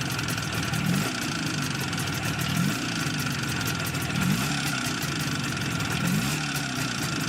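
IZh Jupiter-5 two-stroke twin-cylinder motorcycle engine running near idle, its pitch rising briefly about every one and a half to two seconds with small throttle blips. Over it is a metallic ringing from the pistons and cylinders, the kind common to high-mileage IZh engines.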